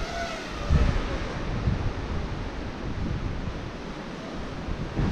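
Wind buffeting the microphone over a steady rushing noise, with strong low gusts about a second in and again at the end.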